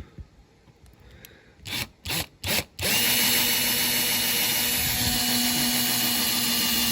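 Small power drill drilling out the rivet that holds a diecast model car's baseplate: three short bursts, then it runs steadily from about three seconds in.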